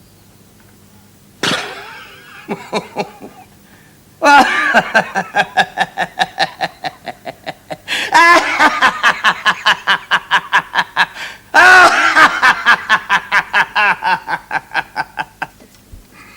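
A person laughing heartily: a short first laugh, then three long bouts. Each bout starts with a loud burst and runs on as a quick, even string of ha-ha pulses that fades away.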